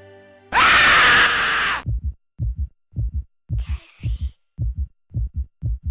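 A sudden, very loud jump-scare scream lasting just over a second, followed by a heartbeat sound effect: low double thumps, about two a second.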